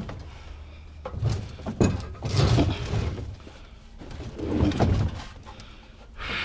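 A heavy metal scrap item being shoved and dragged up onto a truck bed: irregular thuds, knocks and scraping, with one sharp knock about two seconds in.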